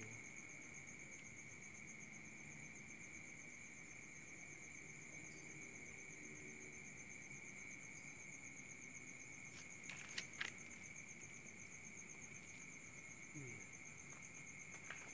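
Crickets trilling steadily at several pitches, faint, with a few sharp clicks about ten seconds in.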